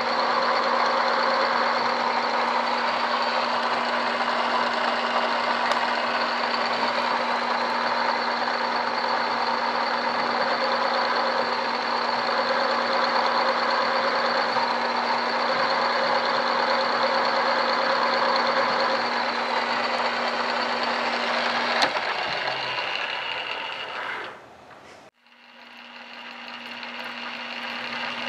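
Drill press running with a steady hum and a high ringing as a small bit drills a metal block held in a drill-press vise. About three-quarters of the way through there is a click, the running sound dies away to near silence over a couple of seconds, then builds back up.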